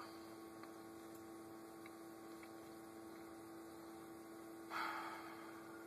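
Quiet room tone with a faint steady hum, and a short soft hiss about five seconds in.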